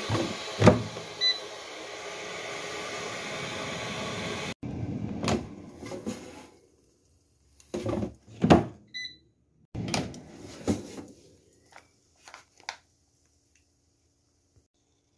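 Gourmia air fryer: a steady whirring that cuts off suddenly after about four and a half seconds, with a loud clunk about a second in. Then clunks and metal rattles of the basket drawer and wire rack being handled, and two short electronic beeps from the appliance.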